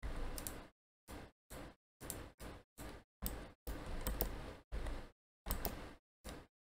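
Computer mouse clicks and keyboard key presses in short separate bursts, about two a second, with dead silence between them.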